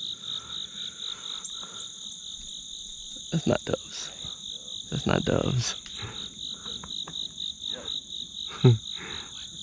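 Chorus of field insects, a steady high trill pulsing rapidly, about five beats a second, with a higher steady buzz above it.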